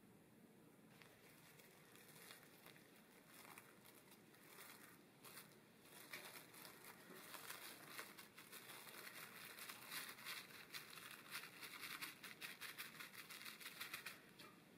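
Faint crinkling of plastic cling film as it is folded over a loaf pan and pressed down by hand: scattered crackles at first, growing into a busy run of quick crinkles from about halfway through.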